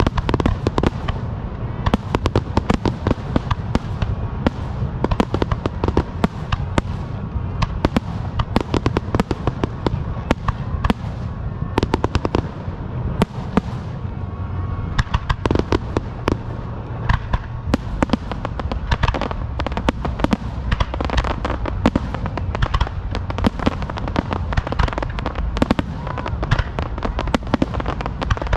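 Fireworks going off in a dense, continuous barrage: rapid sharp cracks and pops, many each second, over a steady low rumble of booms.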